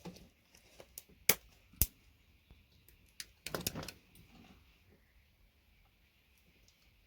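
A few sharp clicks and knocks of small hard parts being handled, two of them standing out at about one and two seconds in, then a short rustling clatter about three and a half seconds in. The parts are most likely scrap VGA connectors and hand tools on a work surface.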